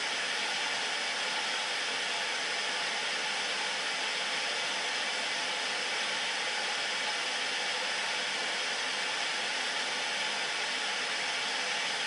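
Static hiss from an old cathode-ray-tube television tuned to an empty channel: a steady, even white noise, bright and thin with almost no bass.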